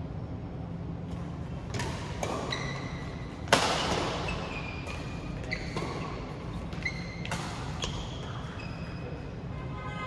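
Badminton rally: a string of sharp racket hits on the shuttlecock, the loudest about three and a half seconds in, with short high squeaks between the hits.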